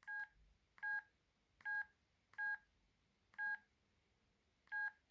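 Ericsson A2618s mobile phone's keypad beeps: six short, identical electronic beeps at an uneven pace, as its buttons are pressed.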